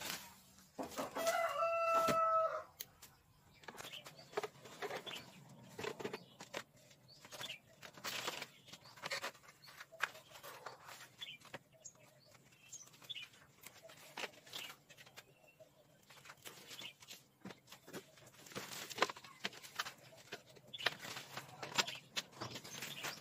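A rooster crows once, about a second in, a single held call of about a second and a half. Around it, short rustles and snaps of weeds and bamboo stakes being pulled and handled.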